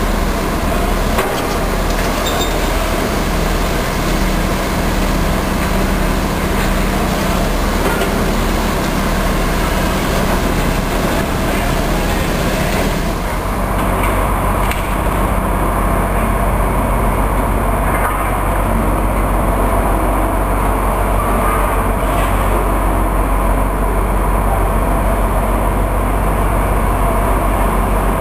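Hitachi Zaxis 250 LCN excavator's diesel engine running steadily as the machine works, with a few faint knocks in the first half. About halfway through, the high hiss drops away, leaving a steadier low engine hum.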